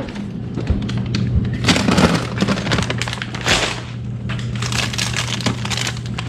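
Freezer of a side-by-side refrigerator pulled open and frozen food bags handled, their stiff plastic crackling and rustling in irregular bursts, over a steady low hum.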